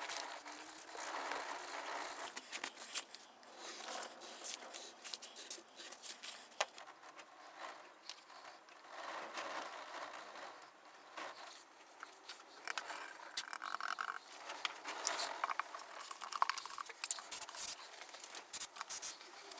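Small workbench handling noises as acrylic and felt pieces are hot-glued and pressed into place: quiet rustling with scattered small clicks and taps.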